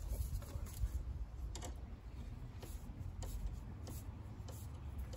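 Scattered small clicks and rubbing from gloved hands and a small hand tool working at a hose fitting, over a steady low rumble.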